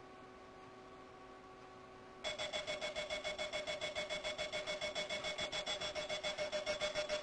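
Runaway alarm clock's electronic alarm switching on about two seconds in: a loud, rapid beeping that repeats about four to five times a second, after a faint hum.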